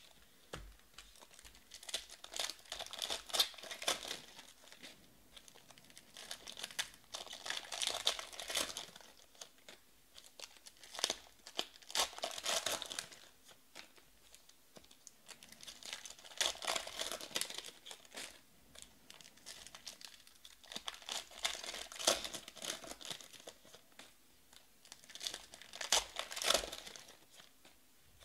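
Foil wrappers of Panini Prizm Draft trading-card packs being torn open and crinkled by hand, in bursts about every four to five seconds with quieter gaps between.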